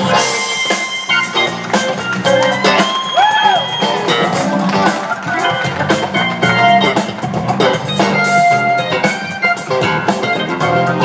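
Band music: electric guitar over a drum kit keeping a steady beat, with a few bent, gliding guitar notes about three seconds in.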